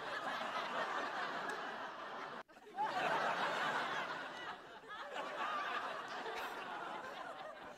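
Studio audience laughing in a continuous wave. The laughter cuts out abruptly about two and a half seconds in, starts again at once, and tails off near the end.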